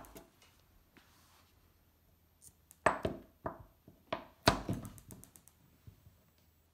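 Kitchen knife cutting through a block of clear melt-and-pour soap on a wooden cutting board: a quiet stretch, then a cluster of about half a dozen short thuds and knocks as the blade goes through and meets the board, about three to five seconds in.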